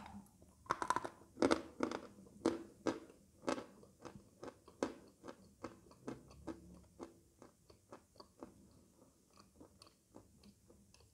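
A piece of edible chalk bitten and chewed: dry, crisp crunches about two a second, growing fainter and sparser toward the end as the chalk is ground down.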